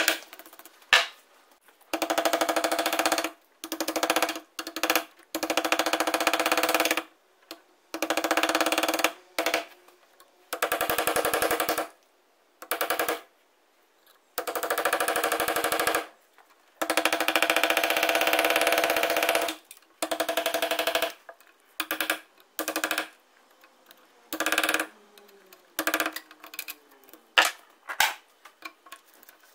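An electric power tool run in repeated bursts of one to three seconds, each a steady motor pitch with a very fast rattling grind, stopping and starting again; near the end the bursts get shorter and the pitch falls as the tool winds down.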